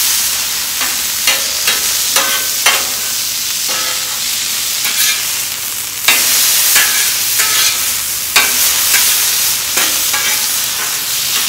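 Thin-sliced ribeye sizzling on a flat-top griddle while a metal spatula scrapes and clacks against the griddle top, stirring and chopping the meat. The sizzle gets louder about six seconds in.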